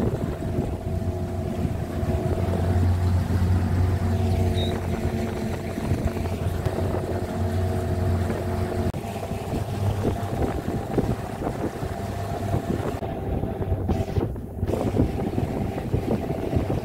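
A motorboat's engine running steadily with an even drone. About nine seconds in this gives way to rushing water and wind on the microphone.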